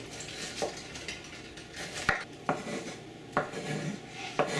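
Chef's knife chopping onion on a wooden cutting board: about five sharp knocks at an uneven pace, the loudest about two seconds in.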